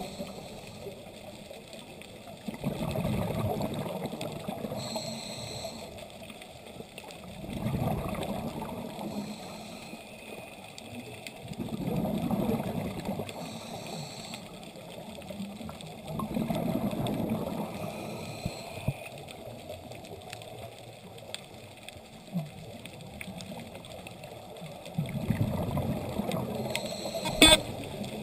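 Scuba diver breathing through a regulator underwater: a short hiss on each inhale and a swell of bubbling exhaust on each exhale, repeating about every four to five seconds. A single sharp click near the end.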